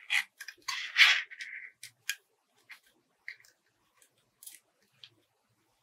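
Scissors snipping through plastic drinking straws: a few sharp cuts in the first two seconds, the loudest about a second in, then only sparse faint clicks.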